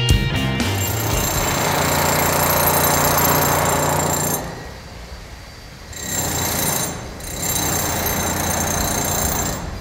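Wheel loader's diesel engine running at a construction site: a steady mechanical din with a low hum and a high whine. It fades out for about a second and a half midway and then comes back.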